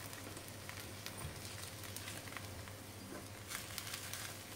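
Faint sizzling of appe in an oiled non-stick appe pan on the gas flame, with light scattered taps and scrapes of a wooden stick against the pan as the appe are turned over.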